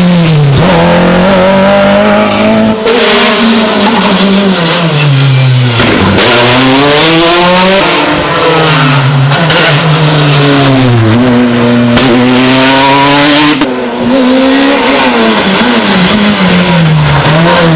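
Rally car engines at full throttle, the engine note rising and falling hard through the gears as several cars go by in turn, with sudden changes in the sound as one car's pass gives way to the next.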